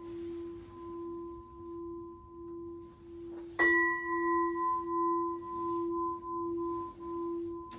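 A Buddhist temple bowl bell (keisu) ringing on with a slow pulsing waver, struck again about three and a half seconds in with a bright new ring, during the silent triple prostration of the service.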